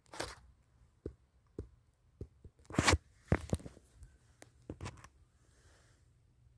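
Handling noise: irregular scrapes, clicks and rustles as a handheld phone is moved around close to a stand fan. The loudest scraping bursts come about three seconds in, over a faint low hum.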